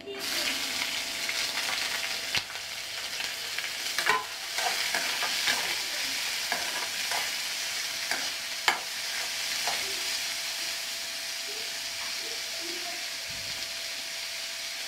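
Chopped onions sizzling in hot oil in a kadai, the sizzle starting suddenly as they go in. A slotted steel spatula scrapes and clicks against the pan now and then as they are stirred.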